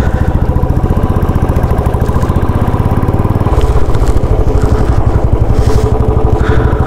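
Motorcycle engine running with a steady, fast pulsing beat as the bike is ridden slowly through a U-turn; the engine note shifts a little about halfway through.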